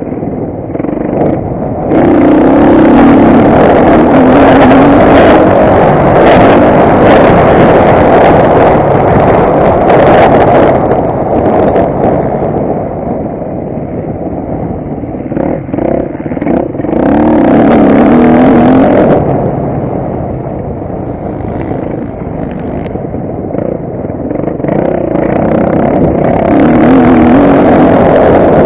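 Motocross bike engine being ridden hard, revving up and easing off with the throttle: two long full-throttle stretches, the first from about two seconds in and the second a little past the middle, with lower revs between and a build again near the end.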